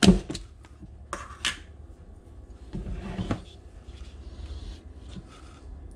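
Plastic tub of butter spread handled and its lid pulled off, with a sharp knock at the start and a few more plastic clicks and knocks. A metal spoon then scoops and scrapes the soft spread, faintly.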